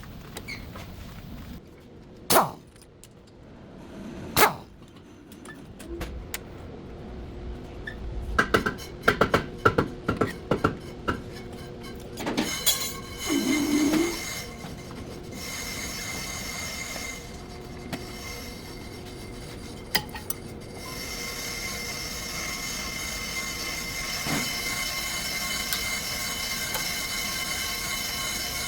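Several knocks and a run of clicks, then a steady high-pitched metallic squeal with several tones held together from about halfway on: the front brake pad noise of a Hyundai Sonata.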